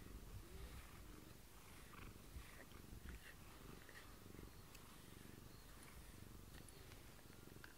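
Domestic cat purring steadily while being brushed, with faint scratching of a rubber grooming brush against its fur.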